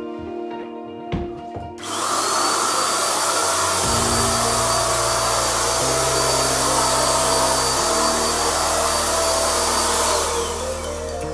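Ozito electric paint spray gun running while spraying paint: a loud, steady hiss of air and paint with a steady high whine. It starts about two seconds in and dies away near the end.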